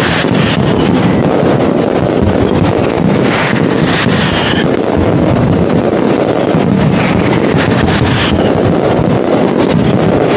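Dense aerial fireworks barrage: explosions run together into a continuous loud rumble, with crackling throughout.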